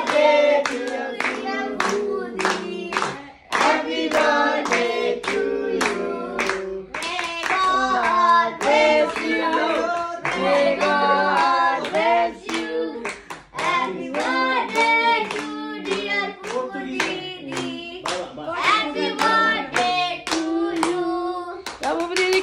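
Singing with steady rhythmic hand clapping, about two claps a second.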